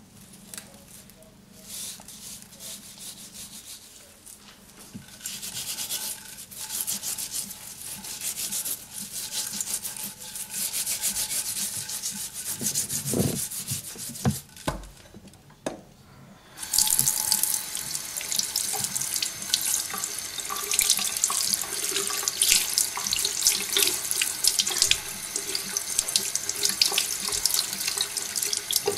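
Kitchen tap running into a sink while a salt-cured duck breast is rinsed under it by hand, the water splashing off the meat and hands. The flow drops away for a couple of seconds around the middle, then comes back louder.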